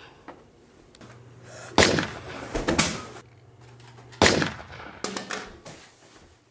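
Two loud gunshot sounds, about two and a half seconds apart, each followed by a short clatter of clicks and knocks.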